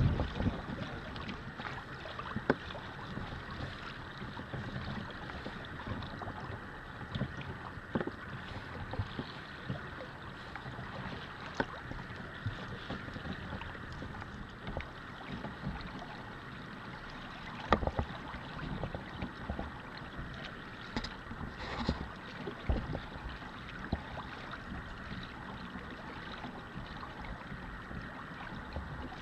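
Water lapping and sloshing against a sailing kayak's hull, with wind on the microphone and scattered sharp knocks, the loudest a little past halfway.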